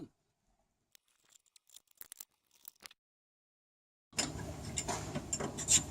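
Near silence with a few faint clicks, then from about four seconds in, a hand socket ratchet clicking rapidly while hitch bolts are tightened.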